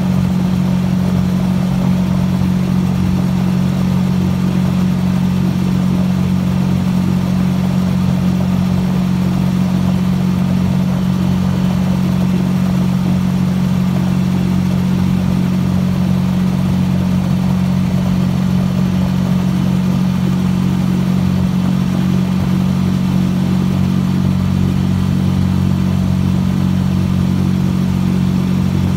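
Small motor pushing a canoe along at a steady throttle, a constant loud drone that holds one pitch throughout.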